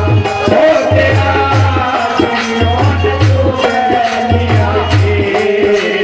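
Live Indian devotional folk music: a sung melody over a steady, repeating low drum beat with jangling, rattling percussion on the rhythm.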